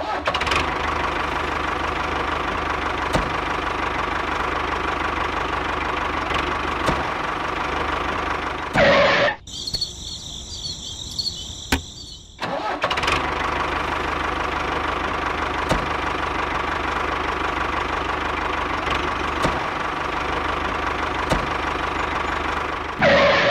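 Tractor engine running steadily, the engine sound of a model tractor. About nine seconds in it breaks off with a loud sweep, giving way to about three seconds of a quieter, higher sound, then the engine sound resumes.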